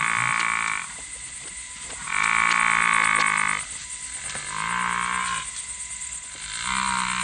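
Buffalo calling: four long calls, each held at one steady pitch for one to one and a half seconds, with short gaps between.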